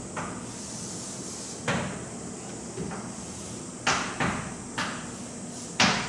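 Irregular sharp taps and knocks of a writing implement striking a board as a circuit is drawn and marked up, about six in all with the loudest near the end, over a faint steady hiss.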